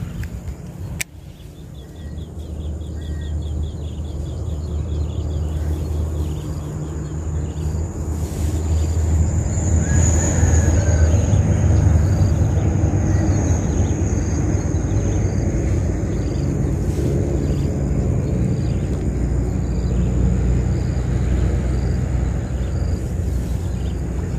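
Low, steady engine rumble from a passing vehicle, building to its loudest about halfway through and staying strong to the end.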